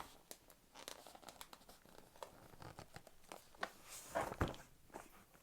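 Keyboard box and its packaging being handled and opened: scattered taps, scrapes and rustles, loudest about four seconds in.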